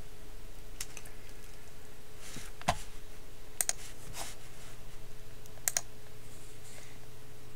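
Scattered computer mouse clicks, a few of them quick double clicks, over a steady low background hum.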